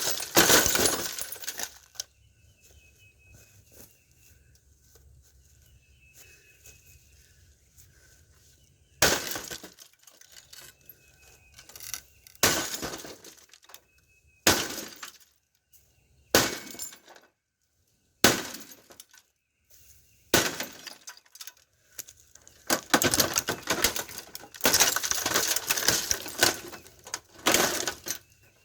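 Glass of a plasma TV breaking. There is a burst of shattering and clinking at the start, then about six separate sharp cracking strikes a second or two apart, and a longer run of crunching, clinking glass near the end.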